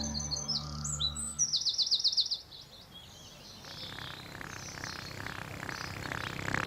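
Birds chirping in quick repeated trills over soft sustained music, stopping a little over two seconds in; a faint hissing noise then builds.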